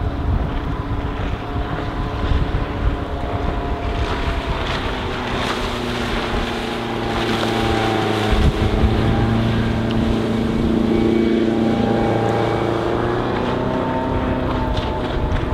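Bayliner Capri Cuddy's MerCruiser 3.0-litre four-cylinder sterndrive running at speed on the plane, its engine note drifting slowly up and down in pitch as the boat passes. Wind buffets the microphone underneath.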